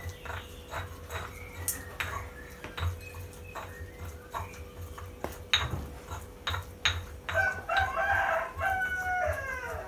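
A rooster crowing once in one long call that starts about seven seconds in and falls away at the end. Throughout, sharp clicks and knocks come from a utensil against a pan on the stove.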